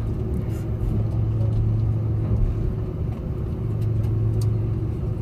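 Cabin noise inside an Airbus A330-300 rolling along the runway after landing: a steady low hum and rumble from the engines and airframe, with a few faint clicks from the cabin.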